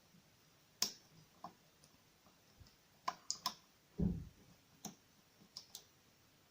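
Lock pick and tension wrench clicking against the wafers of a small wafer lock: sharp, irregular single clicks a fraction of a second to a second apart, with one duller knock about four seconds in.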